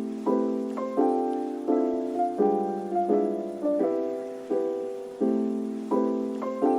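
Background piano music: chords struck about once every 0.7 s, each fading before the next.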